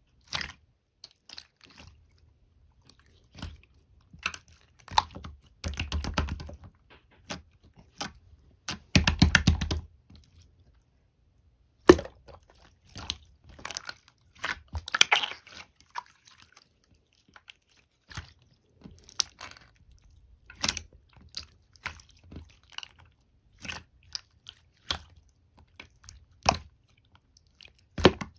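Someone eating peach konjac jelly: irregular wet chewing and squishing mouth sounds, with a few louder stretches and some sharp clicks.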